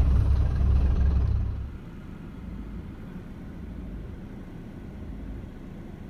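Vehicle engines idling: a deep, steady rumble that drops sharply in level about two seconds in, leaving a fainter steady engine sound.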